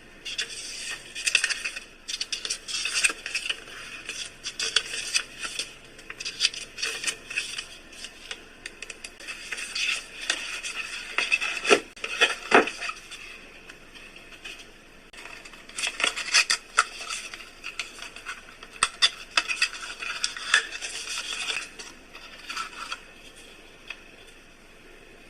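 Close handling noise from unpacking a small portable thermal printer and its parts: uneven scraping, rubbing and light clicking of packaging and plastic, with a few sharper knocks around the middle.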